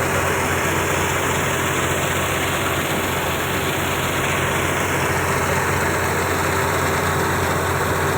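Engine of harvest machinery running steadily at a constant speed, with a steady hum.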